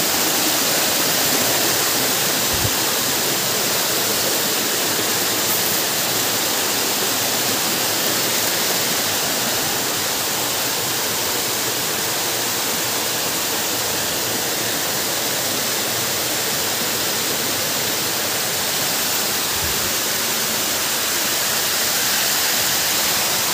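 Steady, even rush of a waterfall running strong, falling water heard without a break.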